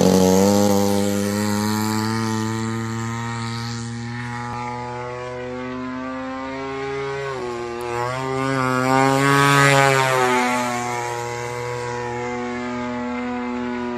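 Radio-controlled aerobatic model plane's motor and propeller running at speed in flight. Its pitch drops as it climbs away at the start, then rises and grows louder about eight to ten seconds in before falling back to a steady drone.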